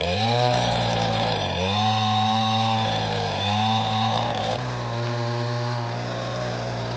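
Chainsaw cutting through a log. The engine's pitch sags and recovers about three times as the chain bites into the wood, then holds steady through the second half.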